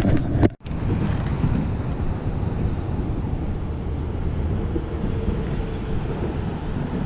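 Wind buffeting the microphone: a steady low rumbling noise. The sound cuts out for an instant about half a second in.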